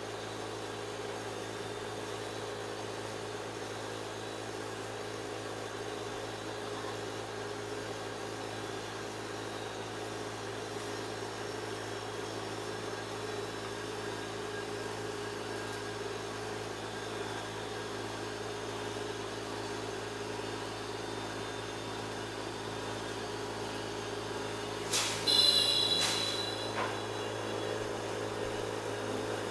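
A steady mechanical hum with several fixed pitches. About 25 seconds in, a short, louder metallic clatter rings out.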